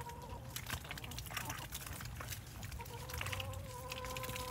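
Hens and ducks pecking and dabbling at water hyacinth floating in a tub of water, making small irregular splashes and clicks. A steady held tone sounds briefly at the start and again for the last second or so.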